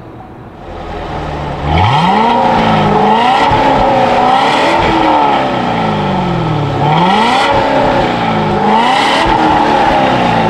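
Chevrolet Corvette Stingray's 6.2-litre V8 starting up a little under two seconds in with a sharp flare, then revved up and down several times through the quad exhaust.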